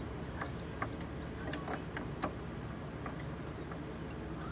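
Scattered light clicks and ticks of small lock hardware and screws being handled while a camper door lock is fitted, over a steady low hum.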